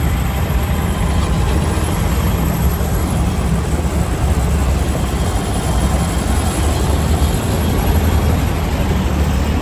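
Steady low rumble of road traffic heard from a moving vehicle, with a city bus's engine running close alongside.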